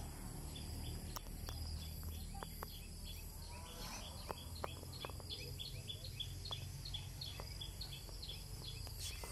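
Rural outdoor ambience: a short high chirp repeated evenly, about three times a second, from a bird or insect, over a steady low rumble, with a few faint clicks.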